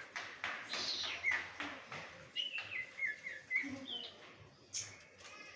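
A young sirtu songbird singing a busy run of short, harsh chirps mixed with whistled notes, several of them sliding down in pitch, with a quick string of short whistles in the middle.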